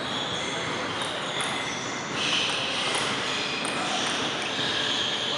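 Steady background noise of an indoor sports hall between rallies, with faint voices and an occasional light click of a table tennis ball.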